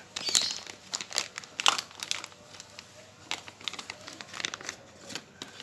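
Thin clear plastic bag crinkling and crackling as a computer mouse is pulled out of it: irregular crackles, densest and loudest in the first two seconds, then fewer and softer.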